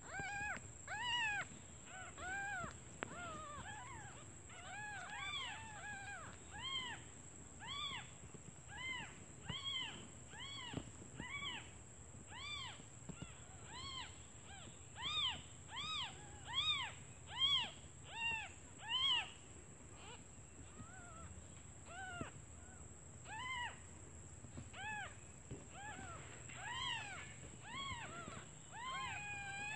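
Newborn kittens mewing over and over, short high arched cries about one or two a second from several kittens at once, thinning briefly about two-thirds through. They are hungry kittens calling for their mother.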